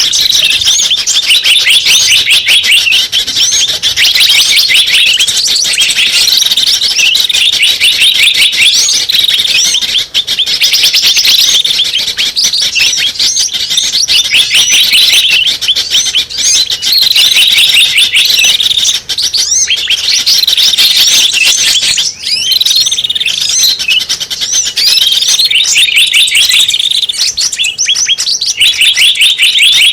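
Bird-lure recording of small birds chirping, a loud and nearly unbroken stream of rapid, high, sweeping notes, played to draw in small birds.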